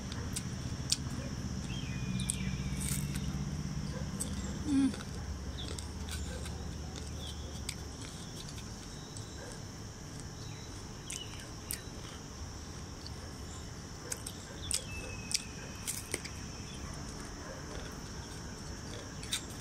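Crisp bites and chewing of raw green mango slices, sharp crunches scattered irregularly throughout. A steady high insect drone and a few short bird chirps run underneath, with a low hum for the first several seconds and a brief louder hum about five seconds in.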